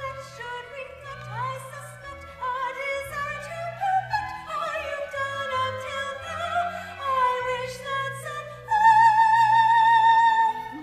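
A woman singing in an operatic soprano style over an instrumental accompaniment, her melody rising and falling. Near the end she holds one long, loud high note with vibrato.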